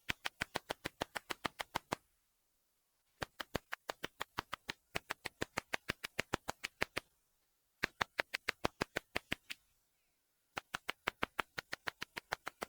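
Ultrasonic song of the katydid Tettigoniopsis ashizuriensis, heard as runs of sharp, evenly spaced clicks at about seven a second. Four runs of a few seconds each are broken by pauses of about a second.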